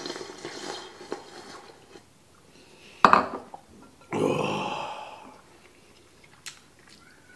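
Slurping miso soup from a bowl, then the ceramic bowl knocked down onto the table about three seconds in, followed by a long breathy exhale and a light click of chopsticks near the end.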